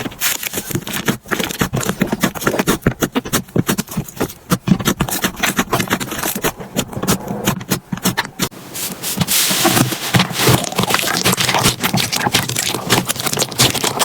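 Slime being worked and pressed, giving rapid, irregular clicks and crackles that become denser and hissier from about nine seconds in.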